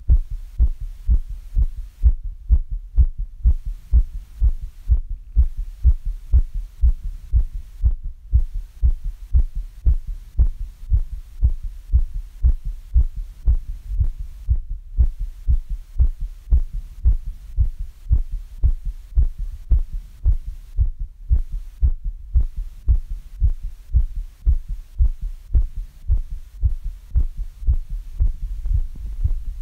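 Human heartbeat recovering after exercise: a steady, even run of low thuds at roughly one and a half beats a second.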